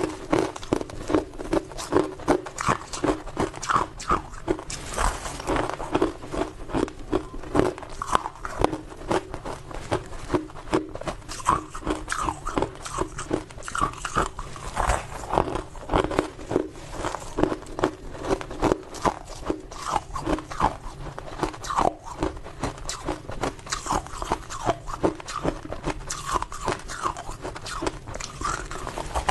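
Ice being bitten and chewed close to the microphone: a continuous run of hard crunches, a few a second.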